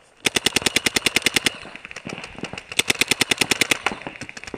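Paintball marker, a Planet Eclipse Ego LV1 electronic marker, firing fast strings of shots at about a dozen a second. There are two main rapid bursts with fainter, sparser shots between them.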